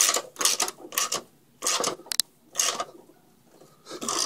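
Socket ratchet wrench clicking in short bursts, about one every half second, as it is swung back and forth to tighten a fastener. It pauses for about a second late on, then clicks once more near the end.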